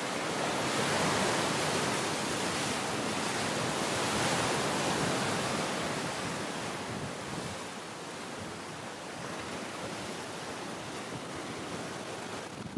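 Sea waves washing on the shore, a steady rush that swells about a second in and again around four seconds, then eases.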